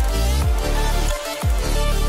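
Electronic background music with a heavy bass drum beat whose deep hits drop in pitch.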